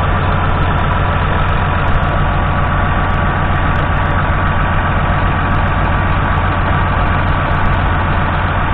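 Massey Ferguson 6160 tractor's 6.0-litre six-cylinder diesel engine idling steadily at close range, with a deep even throb.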